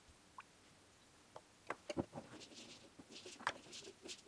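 A few faint knocks and clicks of glass canning jars being set into a water-filled canning pot, with light splashing.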